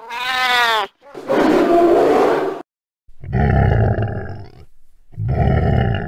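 A run of cat-like animal calls: a short pitched call that bends in pitch, then a rough growl, then two deep roars with a short break between them.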